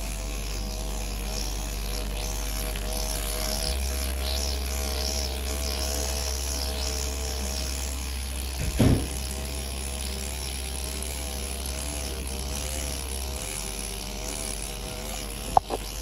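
Electric microneedling pen's motor buzzing steadily as it is worked over the scalp, its pitch wavering slightly as it is pressed and moved. A single short knock comes about nine seconds in.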